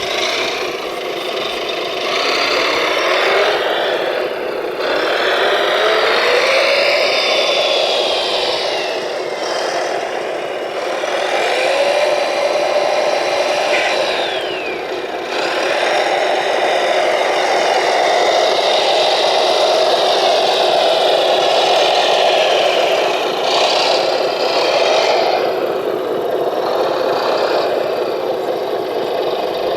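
Radio-controlled model construction vehicles running: a steady mechanical whir with motor whines that rise and fall in pitch several times.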